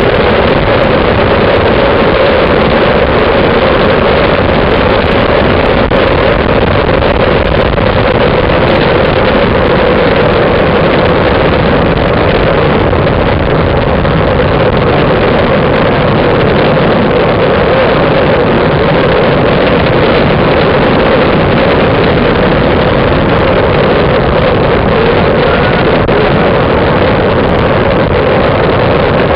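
Loud, steady wind rush on the microphone of a camera mounted on a moving road bicycle.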